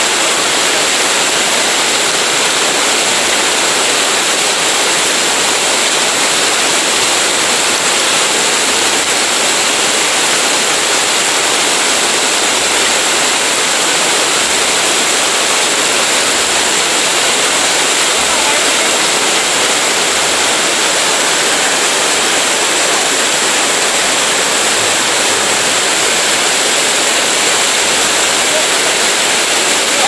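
Loud, steady rush of fast water from a waterfall and its rapids.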